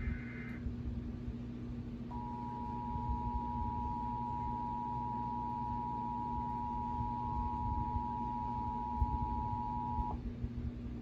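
Emergency Alert System two-tone attention signal (853 and 960 Hz sounded together), a harsh steady dual tone held for about eight seconds from about two seconds in, marking the start of a Required Monthly Test. Right at the start comes the end of a short screeching burst of the digital SAME header data.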